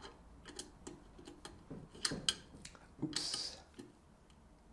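Light irregular clicks and taps of metal parts of an adjustable rifle-stock palm rest being handled and adjusted, with a louder clatter about three seconds in.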